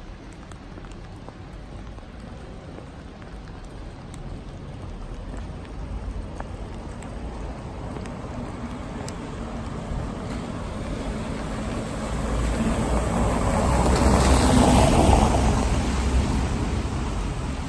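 A motor vehicle passing on a wet cobbled street: engine rumble and tyre noise swell slowly, peak late on, then begin to fade.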